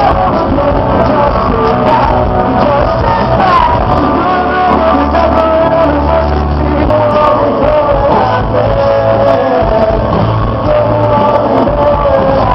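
Rock song with a singing voice over a band.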